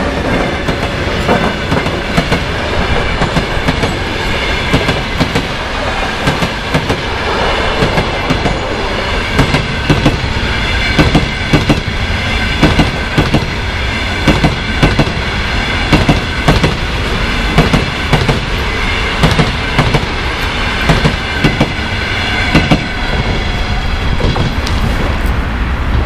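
Passenger train hauled by an EP1M electric locomotive rolling past at speed: a steady rumble with the wheels clicking over the rail joints in quick pairs, the clacking growing denser from about nine seconds in, over a thin steady high whine.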